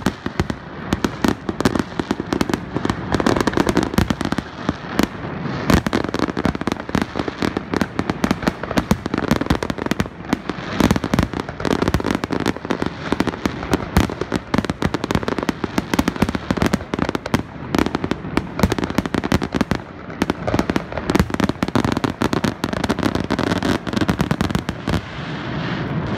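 Aerial fireworks display: a dense, continuous barrage of bangs and crackling bursts.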